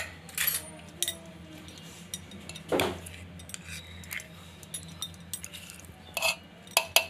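Steel spoon scraping and clinking against a steel bowl and the rim of a steel pot as sticky jaggery is scraped out. Scattered clinks, the loudest about three seconds in and a few more near the end.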